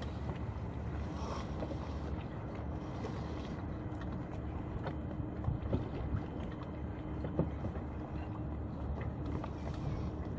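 Wind noise on the microphone of a camera aboard a small sailboat under way in light air, with water noise along the hull. A faint steady hum runs underneath, and there are a few light knocks in the second half.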